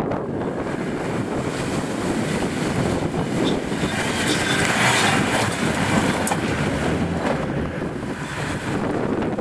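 An off-road 4x4 engine running as the vehicle ploughs through a muddy water crossing. Water splashing swells about halfway through, with wind buffeting the microphone.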